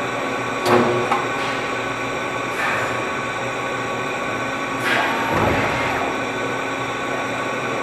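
Automated sheet-metal production-line machinery running with a steady drone, broken by four sharp metallic clunks and a deeper thud about five seconds in.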